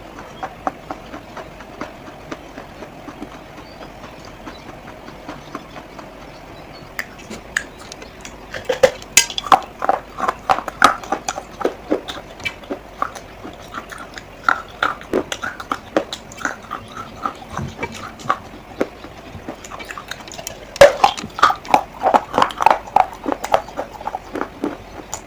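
Clay pots making quick runs of sharp clicks and knocks. They are sparse at first, then come in dense clusters from about nine seconds in and again from about twenty-one seconds in.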